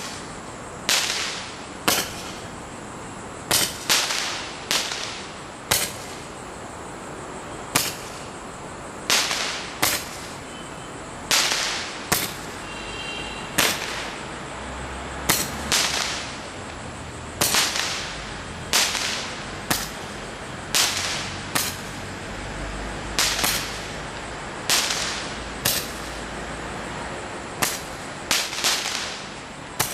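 Multi-shot fireworks cake firing its shots one after another, a sharp bang about once a second, sometimes two in quick succession, each followed by a short fading hiss.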